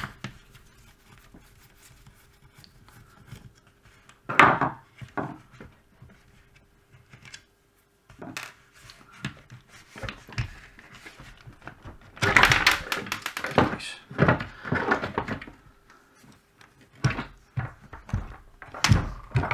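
Hard plastic clicks, knocks and clatter from a Bosch cordless reciprocating saw being taken apart: its clamshell housing is unscrewed and separated and the metal gearbox and motor assembly lifted out. Scattered single knocks, with a busier stretch of rattling about two-thirds of the way through.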